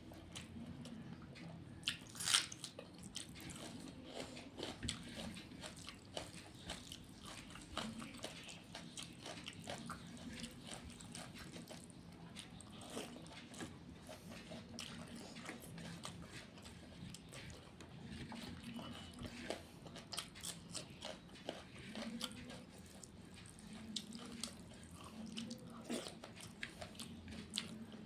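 Close-up eating sounds: a person chewing a meal of rice and fish-head curries, with many small wet smacks and clicks of the mouth and a louder crunch about two seconds in.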